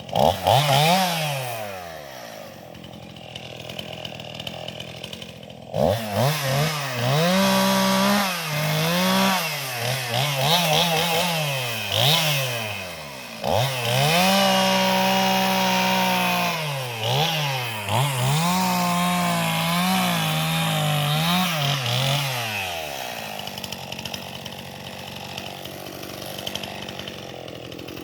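Gas chainsaw revving up and dropping back to idle again and again as it cuts through limbs of a felled tree, some revs held high under load. It gives one quick rev near the start, then idles for a few seconds, makes a run of cuts, and settles back to idle for the last several seconds.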